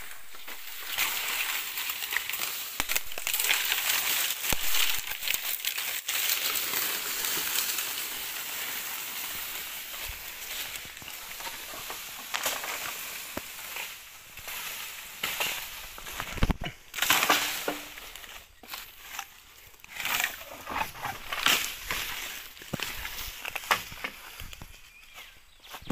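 Dry leaf litter and brush crunching and crackling underfoot as someone pushes through undergrowth. A steady rustle through the first half gives way to irregular sharp snaps and crunches.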